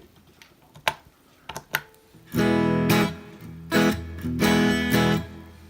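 Electric guitar played through a Boss Blues Driver BD-2 overdrive pedal set to zero gain, giving a nearly clean tone: a few light picked notes, then three strummed chords from about the middle on.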